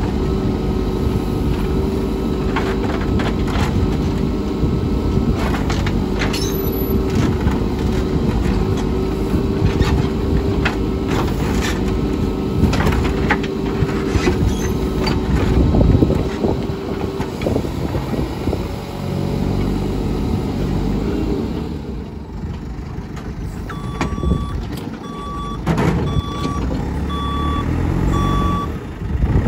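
JCB 3CX backhoe loader's diesel engine running steadily under load, with repeated sharp metal knocks and clanks from the machine working. Near the end its reversing alarm beeps about five times, about one beep a second.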